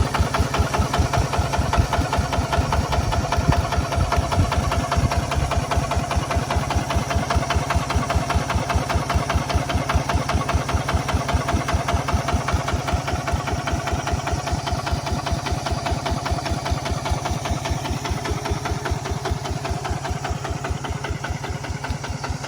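Kubota RT155 Plus single-cylinder diesel engine of a walking tractor running steadily with an even, rapid chugging beat, getting slowly a little quieter over the last few seconds.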